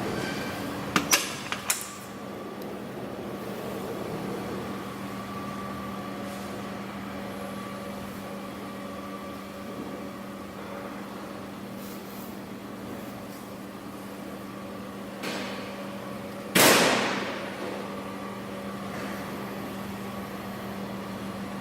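Cummins diesel generator set running at a steady speed, a constant hum. A few sharp clicks come about a second in, and a single loud sudden bang or burst about sixteen seconds in fades away within a second.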